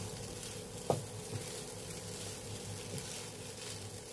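Fried rice sizzling in a hot pan while a wooden spatula stirs and turns it, with one sharp knock about a second in, over a steady low hum.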